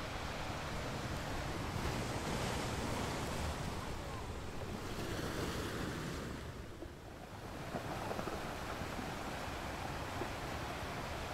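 Rushing wind and water noise, swelling and easing, with a brief lull about seven seconds in.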